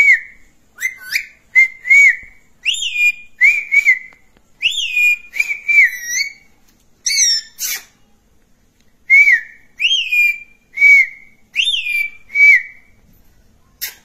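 Indian ringneck parakeet giving a string of short, shrill whistled calls, most held on one pitch and several swooping up before dropping back. There is a pause of about a second just past the middle, and the calls stop a little before the end.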